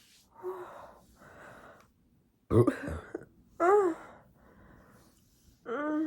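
A person burping: four short burps, the loudest and deepest about two and a half seconds in, with breathing between them.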